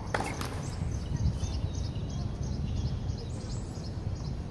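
Outdoor ambience: a steady low rumble with small birds chirping over it. Two sharp knocks come just after the start.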